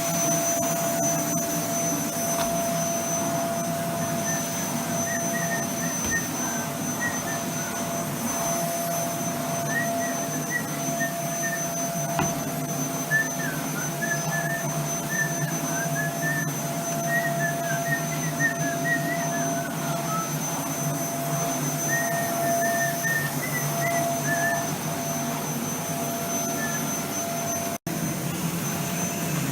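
Vacuum cleaner motor running steadily with a constant high whine and low hum, faint irregular chirping squeaks over it, cutting out for an instant near the end.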